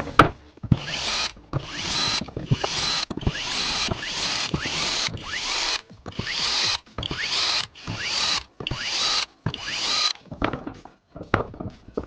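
Small handheld power tool, such as a cordless electric screwdriver, run in about eleven short bursts of roughly half a second to a second each, with brief pauses between them.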